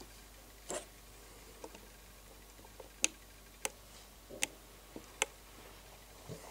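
Uniden UH500SX UHF radio scanning through channels: a quiet run of sharp, irregularly spaced clicks and a couple of short blips, about half a dozen in all, over faint hiss.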